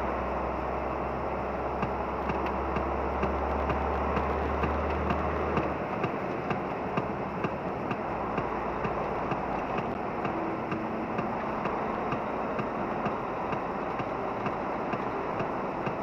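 Volvo FH16 700 truck driving over a rough construction-zone road surface: a steady rumble of engine and tyre noise with many small ticks and rattles. A deep low hum underneath drops away about six seconds in.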